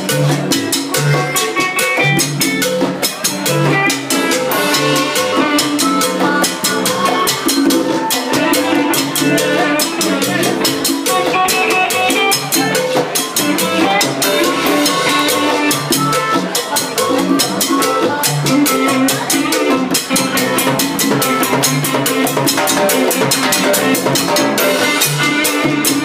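Live Latin band playing an up-tempo salsa number, with drum kit and hand percussion driving a steady rhythm under pitched instruments.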